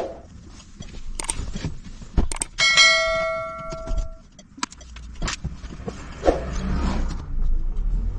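A bell-like ding rings with a clear tone for about a second and a half, about three seconds in, the kind of sound effect that goes with a subscribe-button animation. Around it come sharp knocks and clunks as someone gets into a car's driver seat and the door is shut.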